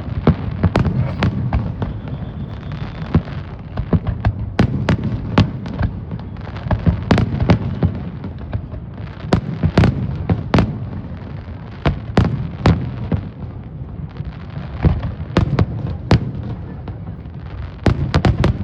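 Fireworks going off: a continuous low rumble of booms with many sharp cracks and pops at irregular intervals, bunching into a rapid cluster near the end.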